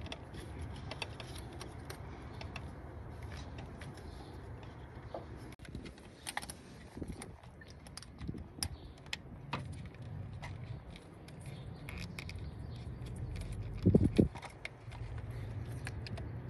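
Small metal parts being handled and fitted in a car engine bay while the fuel rail and injectors go back into the intake manifold: scattered small metallic clicks and rattles, with two louder knocks about two and a half seconds before the end.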